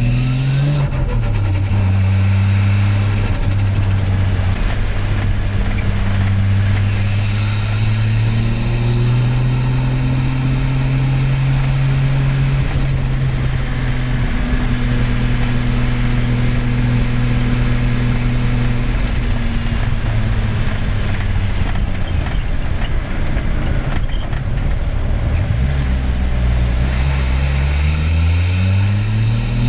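Turbocharged 1JZ straight-six in a Nissan S14 as heard on a ride-along. Revs drop off at the start with a brief turbo flutter as the throttle closes, then the engine cruises at a steady drone that rises and falls gently. Near the end it revs up steeply into a hard pull.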